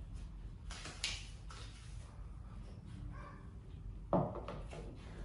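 Two sharp taps, about a second in and about four seconds in, from playing cards being set down on the card table; the second is louder and deeper, like a knock.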